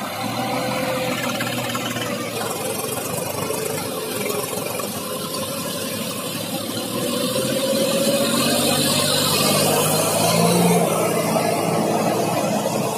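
Sonalika DI 35 tractor's diesel engine labouring as it hauls a fully loaded trolley through soft ploughed soil. The engine note rises and grows louder from about seven seconds in, then eases slightly near the end.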